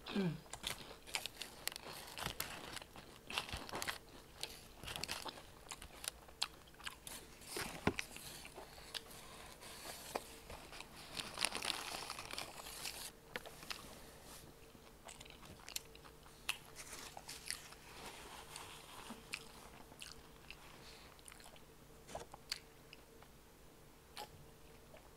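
Close-miked eating sounds: biting into and chewing lemon pepper chicken wings, with short crunches throughout and a denser run of crunching about halfway through.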